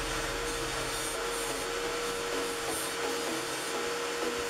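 Electric hand drill running at steady speed, with a steady motor whine, while a steel spade bit is ground against its spinning sanding disc with a continuous rasping grind.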